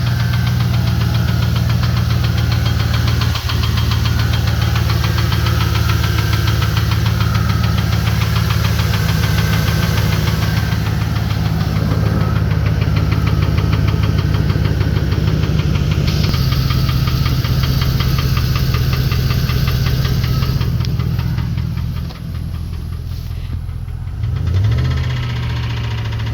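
2015 Chevy Express 1500 van's V8 engine running with a rapid, steady knock, and its speed rising briefly near the end. The inspector suspects a sticking lifter on cylinder 7.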